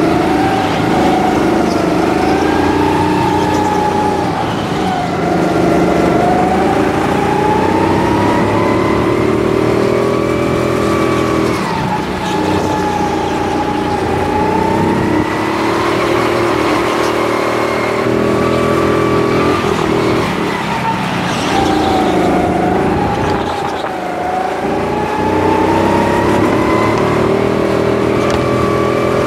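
Go-kart motor heard from on board while lapping, its pitch rising and falling again and again as the driver lifts off for corners and accelerates out of them.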